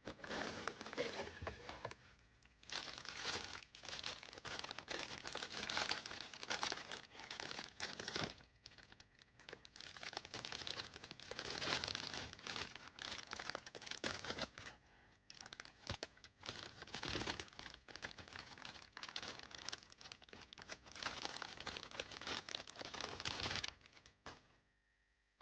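Blind-box packaging crinkling and tearing as it is opened by hand, in irregular bursts with short pauses; it stops about two seconds before the end.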